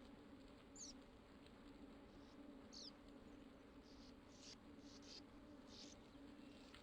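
Near silence: a faint steady low hum, with a few short high chirps, two of them falling in pitch within the first three seconds.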